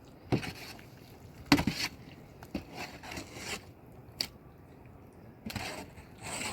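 A string of irregular knocks, scrapes and crunches. The loudest knock comes about a second and a half in, and a longer scrape comes near the end.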